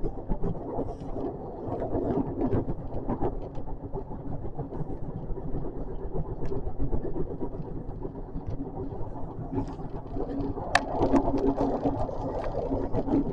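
JR West 521 series electric train running on the rails, heard from inside the front of the train: a steady low rumble with scattered clicks and knocks. A low steady hum grows stronger about ten seconds in, with a sharp click just after.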